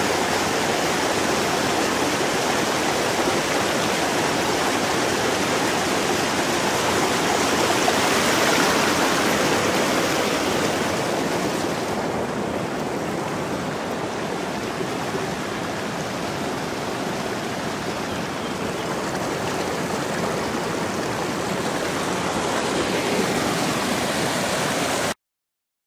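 River water rushing over rocks in shallow rapids, a steady rushing noise that ends abruptly near the end.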